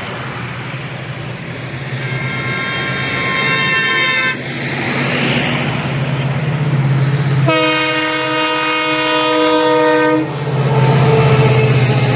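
Indian Railways passenger train approaching with its horn blown twice. The first blast, about two seconds in, is higher and fainter. The second, from about seven and a half to ten seconds, is a louder, lower chord. Under both, the train's low rumble grows steadily louder as it nears.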